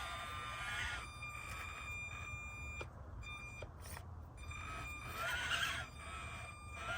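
Small electric drive motor and gears of an Axial SCX24 mini RC crawler whining as it crawls, a steady high whine that cuts out and comes back with the throttle.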